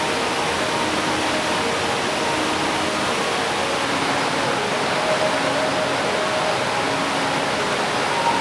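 A wide, low waterfall falling like a curtain of water, a steady, even rushing hiss.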